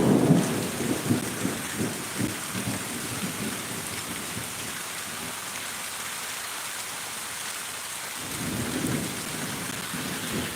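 Thunder from a close lightning strike rumbling loud at first and dying away over a few seconds, over the steady hiss of heavy rain. A softer low rumble swells near the end.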